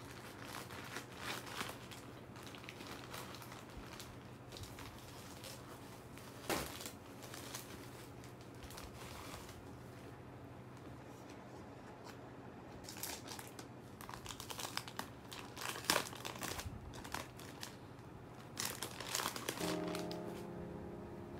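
Plastic packaging crinkling and rustling in irregular bursts as a poly mailer is cut open and a sticker sheet in a clear plastic sleeve is handled. Soft piano music begins near the end.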